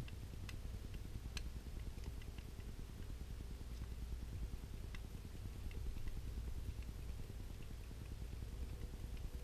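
Faint scattered clicks of a small screwdriver turning a grip-frame screw out of a single-action revolver, a long screw held with Loctite and hard to back out, over a low steady hum.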